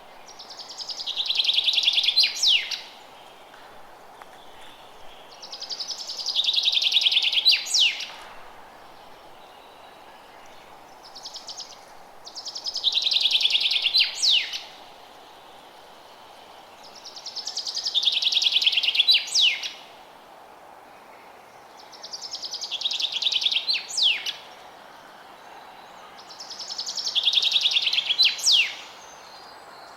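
A songbird singing the same song over and over, about every five seconds: each song is a fast trill of about two seconds that drops in pitch and ends in a few sharp notes. A steady faint hiss of outdoor background lies beneath.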